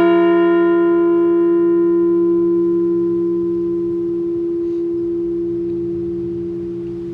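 Liberty Bell replica ringing out after a single strike: one deep, sustained tone with overtones, slowly dying away.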